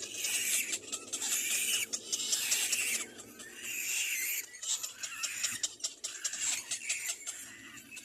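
Little black cormorant chicks calling in repeated high, raspy bursts, each about a second long, with short pauses between them.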